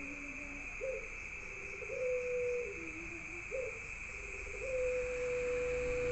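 A puter (Barbary dove) cooing in repeated phrases. Each phrase is a short rising note, then a long steady held note, then a few lower trailing notes.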